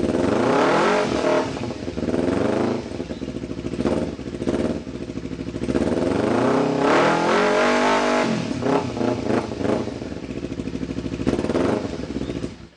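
Kawasaki Ninja 250R's parallel-twin engine revving through a Yoshimura slip-on exhaust, in repeated throttle blips with a longer rise and fall in pitch about six to eight seconds in. It cuts off suddenly near the end.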